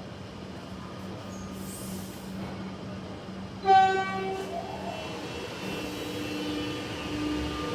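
Melbourne suburban electric train: a steady low hum, then a single short horn blast about halfway through, followed by the rising whine of its electric traction motors as it starts to pull away.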